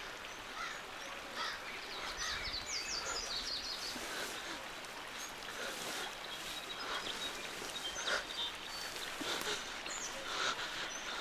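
Outdoor forest ambience with a steady hiss and small birds chirping, including a quick run of short high chirps a few seconds in.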